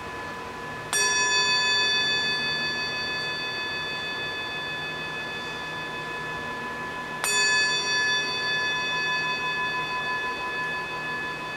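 Small handheld metal singing bowl struck twice with a striker, about six seconds apart. Each strike rings on with several clear, steady tones that slowly fade with a slight waver. It is rung to open a time of silent prayer.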